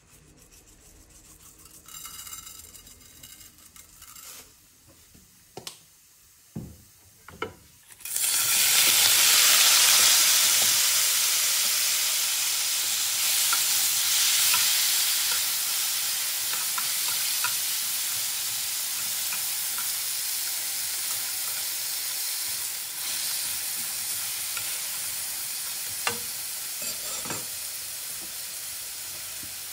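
Mantis shrimp frying in hot olive oil in an aluminium pan: after a quiet start with a few light taps, a loud sizzle begins suddenly about eight seconds in as the shrimp hit the oil, then slowly dies down, with a few clicks of metal tongs turning them.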